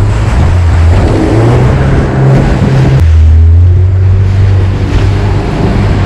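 Jet boat engine running hard under a rush of water and spray as the boat powers up through rapids. The engine pitch climbs briefly, then changes abruptly about three seconds in to a lower, steadier pitch with less water noise.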